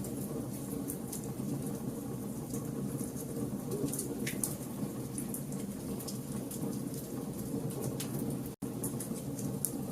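Campfire burning: frequent sharp crackles and pops of burning wood over a steady low rush of flames. The sound cuts out for an instant about eight and a half seconds in.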